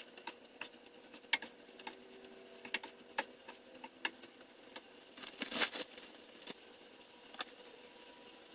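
Spatula stirring sliced mushrooms and flour in a frying pan: scattered light clicks and scrapes against the pan, busiest a little past five seconds in and stopping about seven and a half seconds in.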